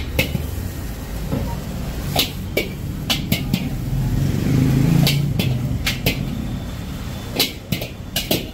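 Metal ladle clanking and scraping against an iron wok and steel tray as fried rice is turned out, about a dozen irregular sharp strikes. A steady low rumble swells louder in the middle.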